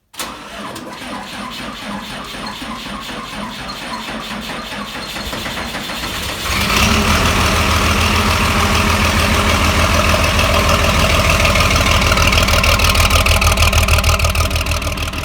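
Old farm tractor engine running with a steady beat of firing pulses, becoming clearly louder and fuller about six and a half seconds in.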